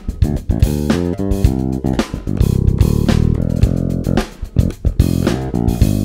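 Cort A6 Plus FMMH six-string electric bass played fingerstyle through its Bartolini bridge pickup alone, with the onboard EQ bypassed: a run of plucked notes with a brief pause a little after four seconds in.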